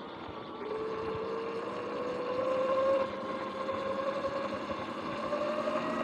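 Sur-Ron X electric dirt bike's drivetrain whining as it rides, the pitch rising slowly as it gathers speed for the first few seconds, then holding steady, over a rushing background of road noise.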